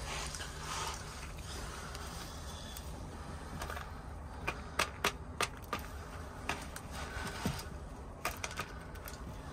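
A rooster pecking grain off a hand-held plastic lid: sharp, irregular taps of the beak on the plastic, coming in a cluster from about the middle on, after some rustling at the start.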